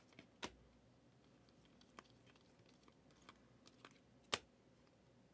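Near silence broken by sparse, faint clicks of trading cards being flipped through by hand, card edges snapping against the stack; the two loudest clicks come about half a second in and just past four seconds.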